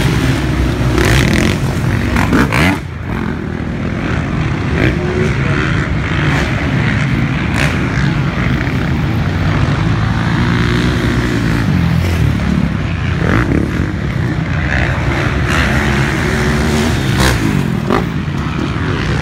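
Motocross dirt bike engines revving up and down as the bikes race over a dirt track, with a sudden brief drop in level about three seconds in.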